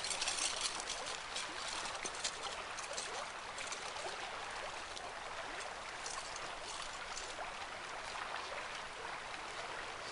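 River water rushing steadily over a shallow riffle, with scattered faint ticks.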